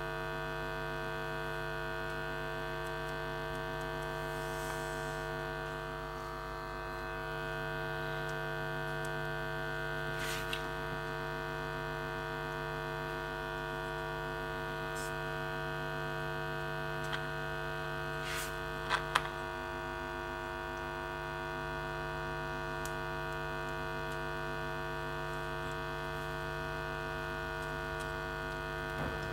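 Paradigm Atom woofer driven by an oscillator through an amplifier, giving out a steady low tone rich in overtones, with its cone pumping to keep it centred while the glue on the new foam surround sets. A few faint clicks come through midway.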